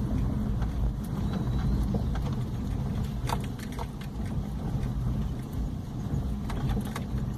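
Car interior noise while driving: a steady low rumble of engine and tyres on the road, with a few light clicks and rattles.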